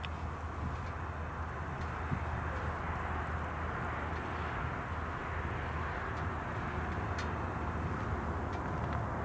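Diesel locomotive at the head of a loaded coal train approaching, its engine a steady low drone under the rumble of the train, slowly growing louder.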